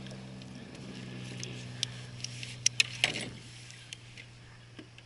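A steady low hum that fades out about three and a half seconds in, with a few sharp clicks about two to three seconds in.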